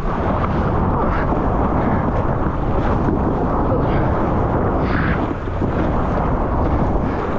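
Loud, steady rumbling roar of wind and rushing water buffeting an action camera's microphone while surfing.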